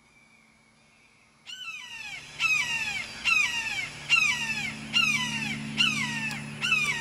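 Immature red-shouldered hawk calling: a regular series of about seven loud screams, each falling in pitch, under a second apart, starting about a second and a half in.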